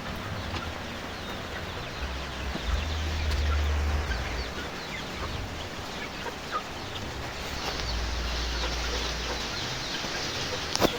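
Village chickens (ayam kampung) clucking, with many short calls scattered throughout and a low rumble that comes and goes.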